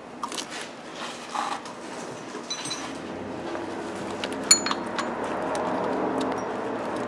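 Scattered metallic clicks and clinks of bolts being hand-tightened on an engine's drive-belt tensioner and idler pulley, with one sharp ringing click about four and a half seconds in. A steady hum grows louder in the background through the second half.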